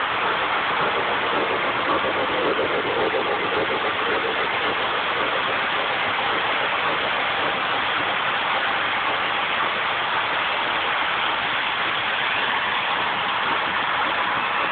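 O gauge model trains running on the layout's track: a steady rolling whir of wheels and motors.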